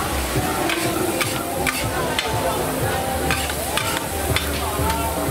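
Pad Thai noodles stir-frying in a hot pan: a steady sizzle, with a utensil clanking and scraping against the metal about ten times.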